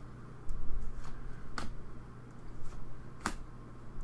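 Hockey trading cards being handled and flicked through. There is a low bump about half a second in, then two sharp card clicks, one near the middle and one near the end.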